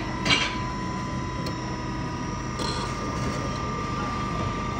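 Self-serve drink dispenser: a sharp click about a third of a second in, then about two and a half seconds in the machine starts dispensing, pouring a thin stream of drink onto ice and milk in a glass, over a steady machine whine and hum.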